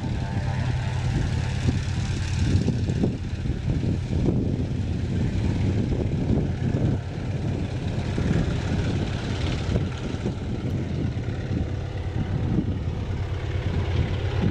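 Antonov An-2 biplane's nine-cylinder radial engine at full take-off power, a steady deep propeller drone, as it tows a train of gliders off the ground.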